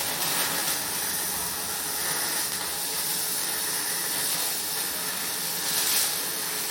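MIG welding arc running steadily as a bead is laid, a continuous hissing crackle that cuts off suddenly near the end when the trigger is released.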